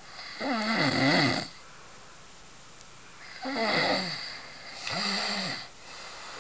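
Loud snoring: a long snore about half a second in, then two more close together a few seconds later, each with a wavering, rattling pitch.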